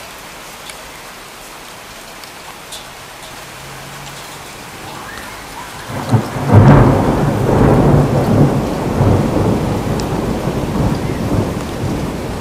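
Rain falling steadily, then about six seconds in a sudden loud clap of thunder that rolls on rumbling through the rest.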